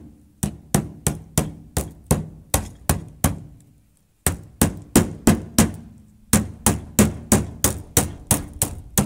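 A claw hammer tapping the two halves of a screen-door pet door frame together, setting the frame onto the screen. Quick, sharp taps at about three a second, each with a short low ring, in three runs with two short pauses between them.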